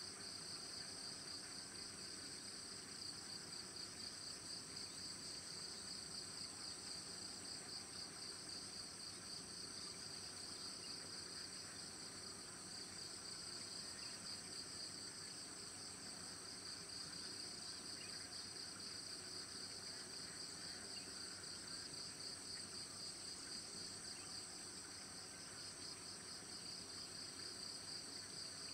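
A faint, steady, high-pitched chorus of insects, one layer with a fast pulsing trill.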